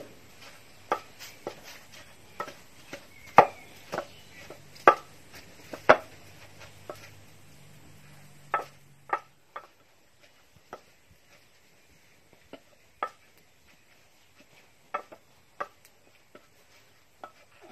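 Wooden pestle pounding in a clay mortar, pounding boiled fish meat into chili curry paste: sharp, irregular thuds about once a second, loudest in the first half and fewer and quieter after about nine seconds.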